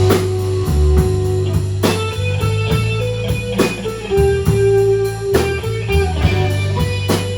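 A live blues band playing the instrumental intro of a slow blues: electric guitar phrases over a bass line, with a drum hit about every second and three quarters.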